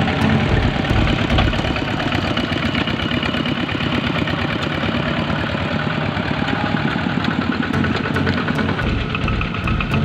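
Single-cylinder diesel engine of a two-wheel walking tractor running steadily with a fast, even chugging beat as it pulls a trailer loaded with rice sacks.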